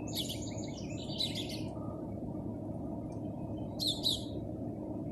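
Small songbird chirping in short high bursts, a quick cluster in the first second and another a little before the end, over a steady low background noise.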